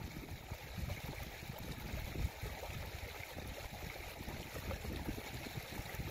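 A creek running steadily, with low gusts of wind buffeting the microphone.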